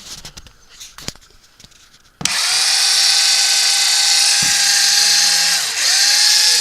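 Makita 6012HD 9.6-volt cordless drill: a few clicks, then about two seconds in the motor starts suddenly and runs at a steady whine, dipping briefly in speed about a second before the end and picking back up.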